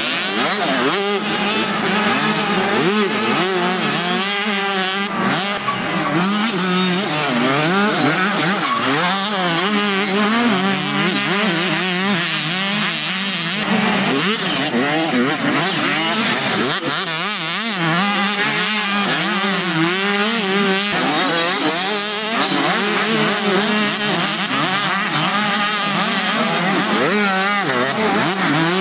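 Several motocross motorcycles racing, their engines revving up and down and overlapping as they accelerate and shift, over a steady low drone.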